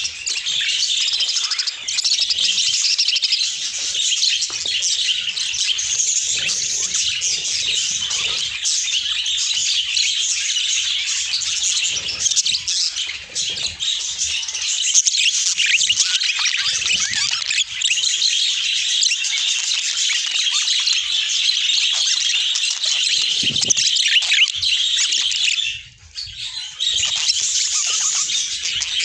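A flock of budgerigars chattering and chirping in a dense, continuous mass, broken by a brief lull about three-quarters of the way through.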